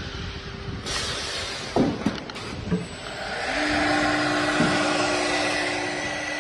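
Four-spindle CNC woodworking router running: a rush of noise comes in about a second in and a few short knocks follow. A steady spindle whine with a hiss then sets in about halfway through.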